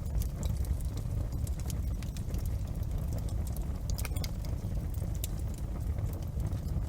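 Wood fire crackling in a fireplace: scattered sharp pops and snaps over a steady low rumble, with a quick cluster of pops about four seconds in.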